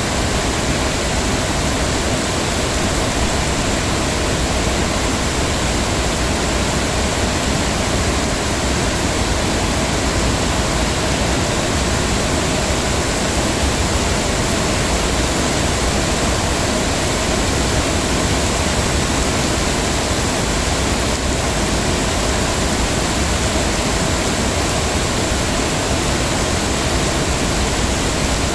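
Heavy rain falling steadily, a dense even hiss of downpour with no breaks.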